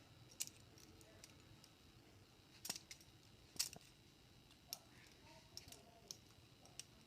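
Trainer butterfly knife's metal handles clicking against each other and the blade as it is flipped: about ten faint, sharp clicks at irregular intervals.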